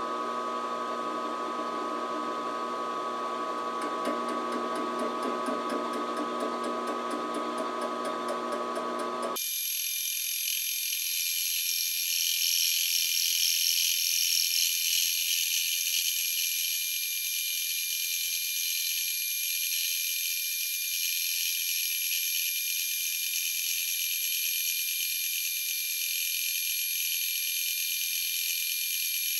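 Round column milling machine spinning a homemade fly cutter across the cast-iron exhaust manifold's flange: a steady machine whine with cutting noise. About nine seconds in, the lower part of the sound cuts off abruptly, leaving only a thin, high-pitched whine.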